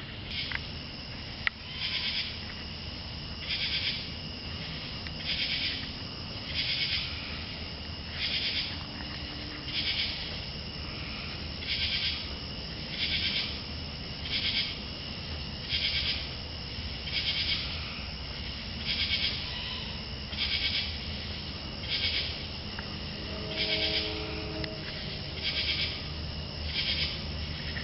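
An unidentified animal calling over and over in a high pitch: short calls of about half a second, repeated evenly roughly every one and a half seconds, over a steady low hum.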